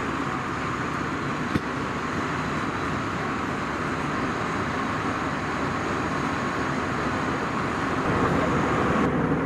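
Steady cabin noise of an Airbus A320 airliner in flight, an even rush of air and engine sound, with one small click about a second and a half in.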